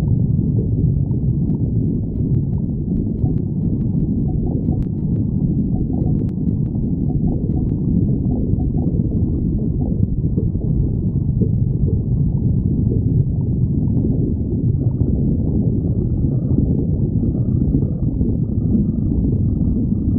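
A person's stomach growling: a continuous low rumble with gurgles.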